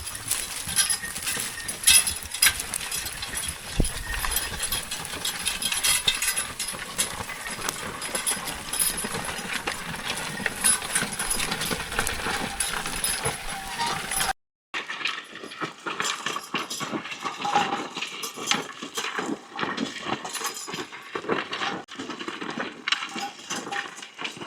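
Percheron horse team pulling a plough: irregular metallic clinking and jingling of the harness and chains, with hoof and plough noise beneath. The sound cuts out briefly about 14 seconds in and comes back thinner.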